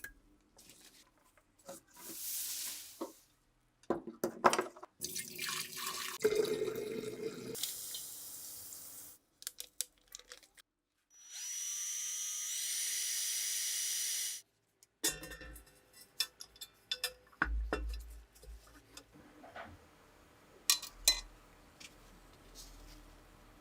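Workshop sounds of rifle restoration work: scattered clicks and knocks of handled parts, several short hissing or rushing runs, and one steady tool run of about three seconds around the middle.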